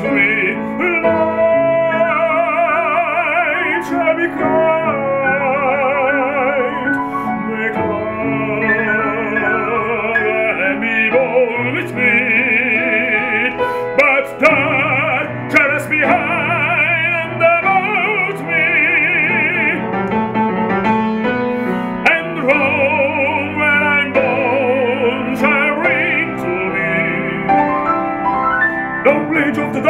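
Baritone singing an operatic aria with wide vibrato, accompanied by a grand piano.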